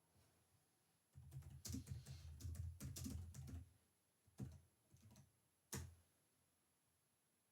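Typing on a computer keyboard: a quick run of keystrokes lasting about two and a half seconds, followed by a few separate clicks.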